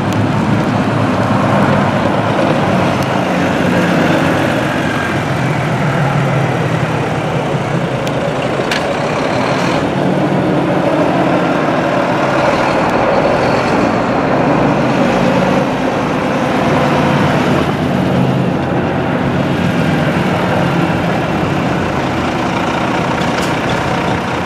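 Diesel engine of a coach bus running as it manoeuvres slowly, its note rising and easing off a few times.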